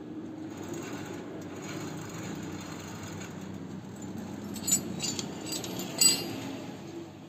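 Metal hand tools clinking against a scooter's rear axle and brake hardware: a few light clinks in the second half, the sharpest about six seconds in, over a steady low background noise.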